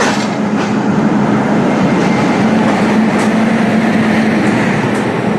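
Passenger train running on the track: a steady rolling noise of wheels on rail with a steady low hum, and a few sharp clicks of the wheels over rail joints.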